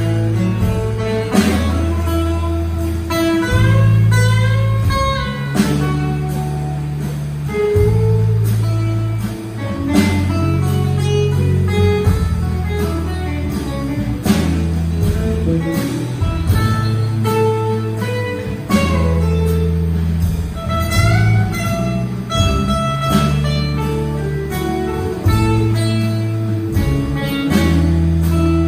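Live band playing a slow waltz, with acoustic guitar and a steady bass line changing note every second or two.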